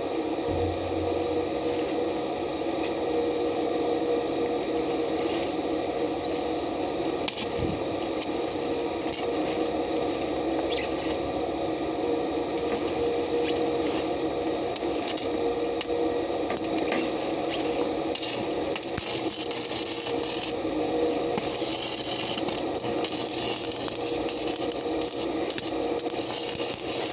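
Stick welding arc crackling and hissing steadily, with scattered sharp pops of spatter; the hiss grows brighter about two-thirds of the way in. A steady low machine hum runs underneath.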